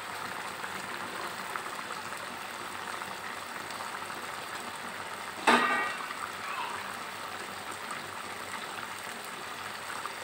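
Pomfret curry simmering in an open pan, a steady bubbling hiss. About five and a half seconds in there is one sharp metallic clink that rings briefly.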